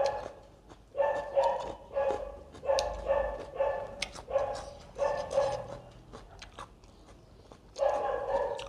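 A dog barking repeatedly, roughly one bark every half-second to second, with a pause of about two seconds after six seconds in, then barking again near the end.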